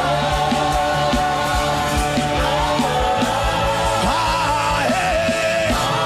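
Live church music with sustained chords and a steady beat, under loud wordless voices wailing and singing in travailing prayer.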